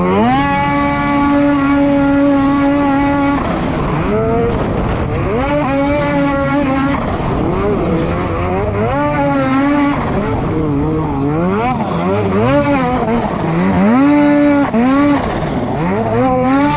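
Snowmobile engine revving hard, held at high revs for about three seconds. The throttle is then worked on and off again and again, so the pitch keeps climbing and dropping.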